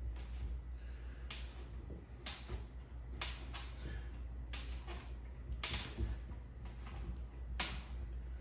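Allen wrench turning an assembly screw into a flat-pack bookcase panel by hand, with a short scrape about once a second as the key is turned and reset. A steady low hum sits underneath.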